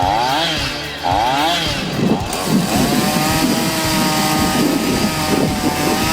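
Chainsaw engine revving up and down about once a second, then held at a steady high speed from about two seconds in.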